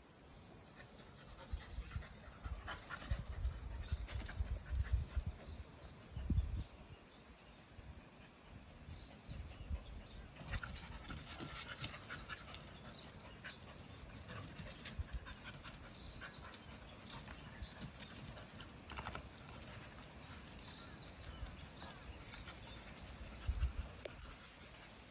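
Two dogs playing and wrestling, panting with scuffling and rustling. Irregular low thumps come a few seconds in and again near the end.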